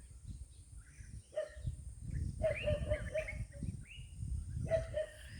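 Faint animal calls: a single short note, then a quick run of short repeated notes, and a brief burst near the end, over low outdoor rumble.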